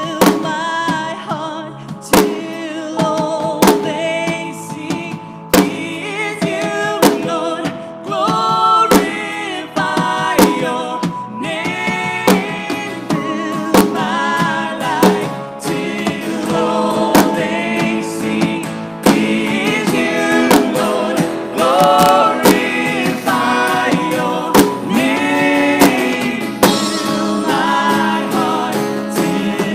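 Live worship band: a woman singing lead over acoustic guitar and keyboard, with steady drum hits keeping the beat.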